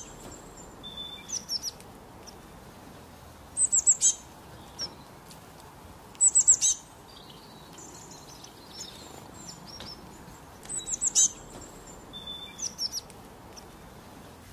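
Songbirds singing: short, high phrases of three or four quick notes each, about five phrases a few seconds apart, over a faint steady hiss.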